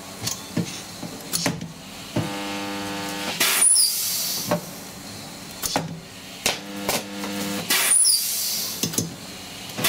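Welder laying short spot welds on a car's sheet-steel floor and inner sill: several sudden loud bursts, each about a second long, with quieter buzzing between them.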